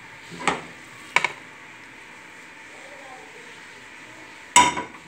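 Frying pan and spatula knocking against a ceramic plate as cooked chicken filling is scraped out onto it. There are three sharp knocks, the loudest near the end with a short ring.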